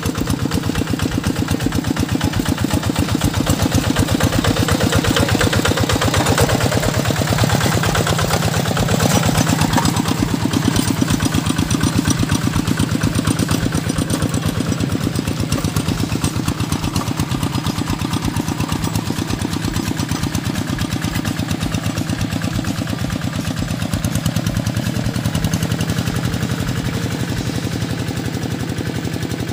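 Two-wheel hand tractor's single-cylinder diesel engine running steadily under load as it drags a blebes bladed roller through a flooded rice field, a fast even firing pulse throughout.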